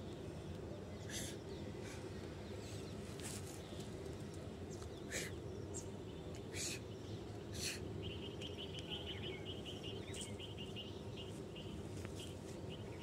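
Birds calling over a steady low background hum: a handful of short, sharp calls in the first eight seconds, then a fast repeated trill lasting about four seconds.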